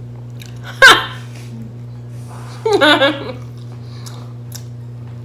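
A woman lets out a single short, sharp vocal sound just under a second in, then laughs briefly a couple of seconds later.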